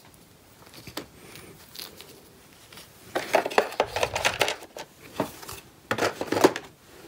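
Game pieces and a cardboard board being handled and set into a plastic box insert: a few light clicks at first, then bursts of rustling and clattering about three seconds in and again near the end.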